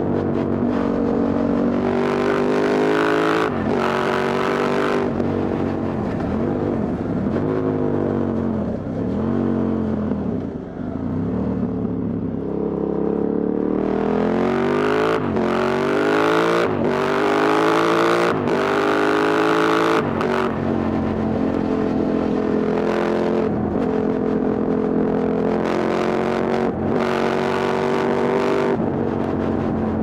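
Motorcycle engine and exhaust heard while riding, with the pitch changing through the gears. The engine runs steadily with short breaks for gear changes, then the revs dip and fall as it slows. It climbs again through several gear changes and settles to a steady cruise for about the last ten seconds.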